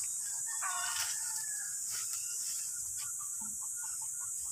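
A chicken clucking in short calls, the clearest about a second in, over a steady high-pitched hiss.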